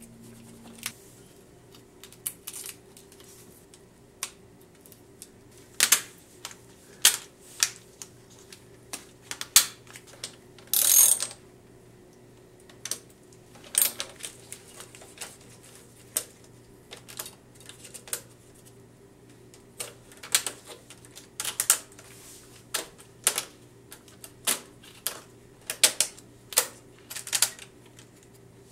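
Irregular sharp clicks and clatters of small metal and plastic parts being handled as the bus-bar plates and nuts go back onto the terminals of a Toyota Prius hybrid battery pack, with a longer scraping rattle about eleven seconds in.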